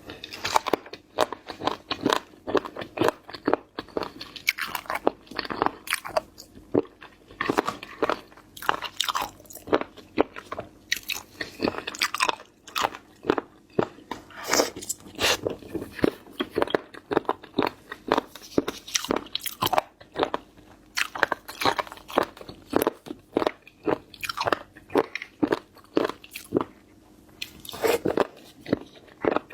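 A person biting into and chewing seafood, with many crisp crunches and wet chewing clicks in quick succession.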